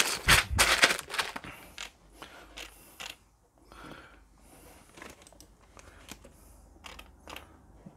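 Clear plastic bags of LEGO parts crinkling and small plastic bricks clicking together as they are handled, densest in the first couple of seconds. A few sharp laptop key clicks follow near the end.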